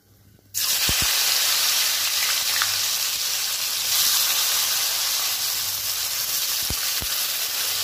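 Sliced onions dropped into hot oil in a wok, breaking into a sudden loud sizzle about half a second in and then frying steadily. A few soft low thumps sound once near the start and twice near the end.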